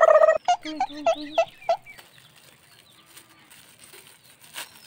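Domestic chicken calling: a loud held note cuts off just after the start, followed by about five quick clucks. After that it is quiet apart from faint crinkles, with a short tap near the end.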